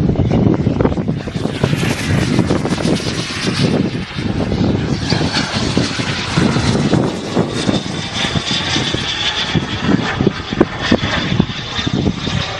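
Turbine engine of a radio-controlled model jet flying past overhead: a rushing jet hiss with a high whine that comes in about halfway through. Gusty wind buffets the microphone throughout.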